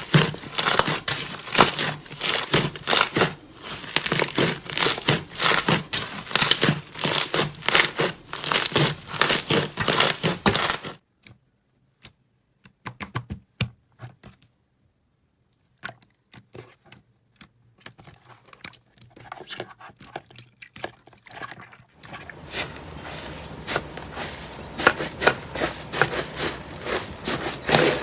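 Slime being squeezed and stretched by hand, giving dense crackling and clicking. It goes almost quiet about eleven seconds in, with only a few scattered clicks, then the crackling picks up again about twenty-two seconds in.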